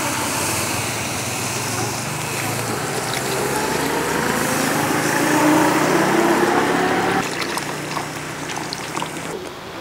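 Fresh milk poured in a steady stream from a carton into a hot wok of sautéed onion, flour and diced tomato, over a continuous hiss of cooking. The pour carries a faint tone that slowly rises in pitch, and the sound changes abruptly about seven seconds in.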